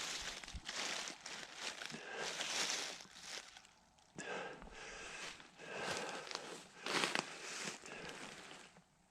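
Dry, crunchy fallen leaves rustling and crackling in irregular bursts as a person moves and works among them, with a short lull about four seconds in; the sound stops just before the end.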